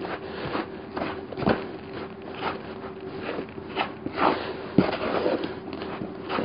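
Hands kneading a damp mix of ground bread crumbs and soybean powder with salt water in a bait bucket, making irregular squishing, rustling and scraping strokes, under a faint steady hum.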